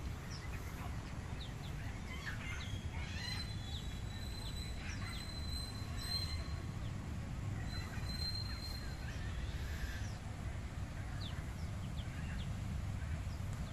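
Birds chirping and calling with many short, quick notes, and a thin high whistle at times, over a steady low rumble.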